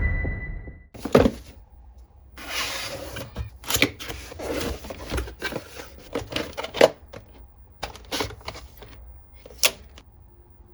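Typing on a GravaStar Mercury K1 Lite 75% mechanical keyboard: irregular clacks of keystrokes, some single and some in quick runs, with short pauses between.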